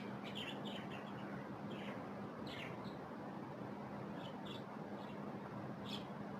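Budgerigars chirping in short, scattered calls over a steady low hum and a constant hiss.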